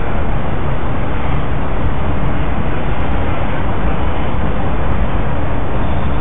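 Steady, loud rumbling noise, heaviest in the low end, with no break and no speech over it.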